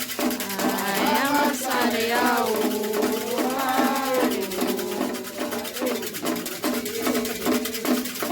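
Candomblé ceremonial music for Xangô: a steady, regular drum beat, with voices singing a chant over it from about a second in until around five seconds.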